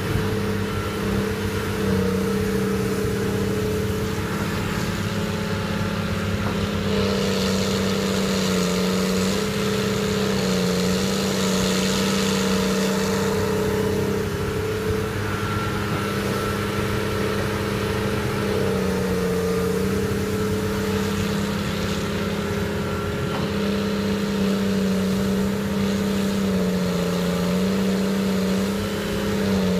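Liebherr 952 hydraulic excavator's diesel engine running steadily at working speed, its pitch dipping briefly several times as the hydraulics take load while it digs and swings. A rushing noise rises over it for several seconds near the middle.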